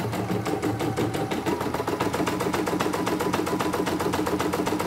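CNY portable computerised embroidery machine stitching lettering, its needle striking in a rapid, even rhythm.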